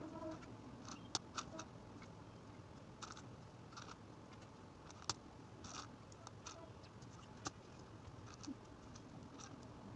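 Scattered small clicks, taps and short snips of hands working with craft materials, irregular and a second or so apart.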